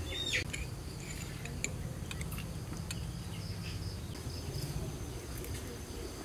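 Crickets chirping steadily, with a few light clicks of metal spoons against glass bowls.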